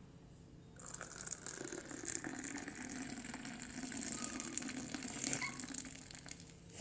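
Boiled milk poured from a height onto whipped coffee cream in a glass: a steady splashing pour that starts about a second in and tails off near the end. Pouring from high up makes the milk froth.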